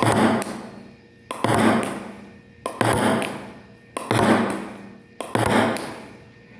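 Table-tennis ball struck with a paddle five times at an even rhythm, about one hit every 1.3 seconds. Each sharp tap is followed by a hissing swell that dies away before the next hit.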